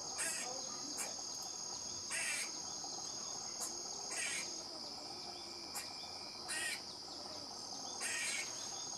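Insects trilling in a steady, high-pitched drone, with short, louder rasping bursts breaking in irregularly about every second or so.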